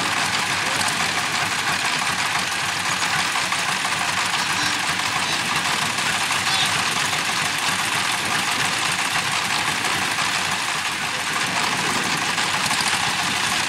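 A two-wheel walk-behind tractor's single-cylinder diesel engine running steadily, with a chattering, knocking note and no revving up or down.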